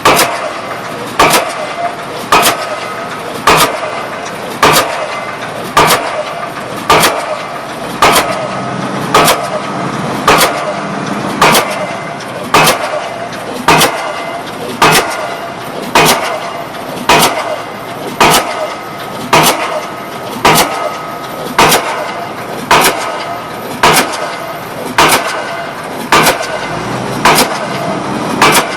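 Pile-driving hammer striking a pile at a steady pace, about one heavy blow a second, over continuous machine noise between the blows.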